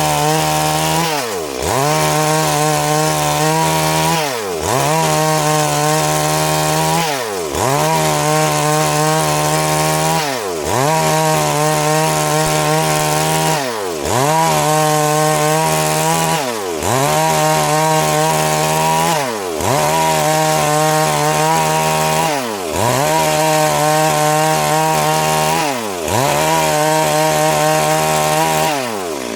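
Stihl MS 382 two-stroke chainsaw running at high speed. Its pitch drops sharply and climbs straight back up about every three seconds, again and again.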